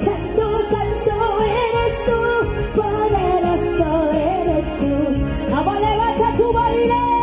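Latin-style Christian praise music with a steady beat under a wavering lead melody, an instrumental passage between sung lines.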